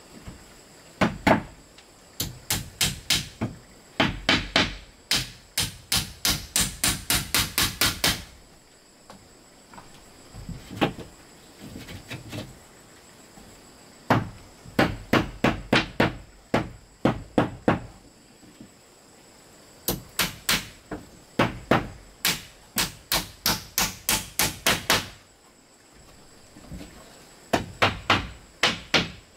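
Hammer striking wood in runs of quick blows, about three to four a second, with short pauses between runs.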